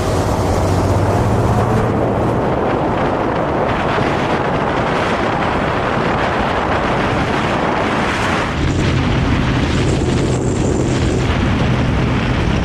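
A speedboat running fast, its motor's drone largely buried under loud wind buffeting the microphone. A little over halfway through, the wind noise eases and the engine's steady low drone comes through again.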